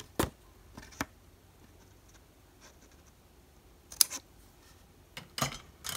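Scissors snipping a short cut into black cardstock: a few light clicks and paper handling, with the loudest, sharpest snip about four seconds in and more rustling of the card near the end.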